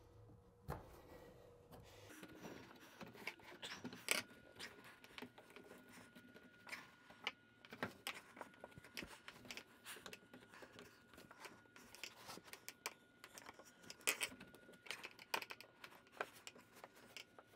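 Faint, irregular scrapes, rubs and clicks of a rubber drain gasket being worked down over a plastic drain pipe inside a shower base's drain, with a few sharper ticks.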